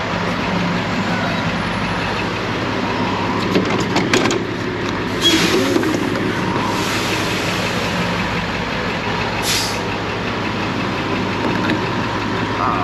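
Steady mechanical hum at a truck fuel pump, with a few clicks about four seconds in and two short hisses, one at about five seconds and a briefer one near nine and a half.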